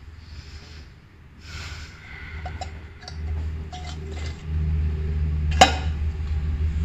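Small metallic clinks and clicks as a motorcycle's clutch cover is pressed back onto the engine case and its bolts are started, with one sharp metal knock near the end, over a low rumble of handling noise that grows louder.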